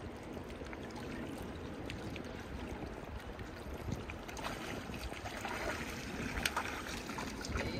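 Steady rush of river water with wind rumbling on the microphone, and scattered light clicks and ticks in the second half.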